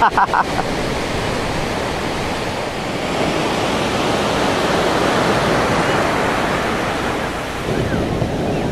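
Ocean surf rushing steadily onto a beach, a constant wash of waves that swells slightly midway and eases near the end.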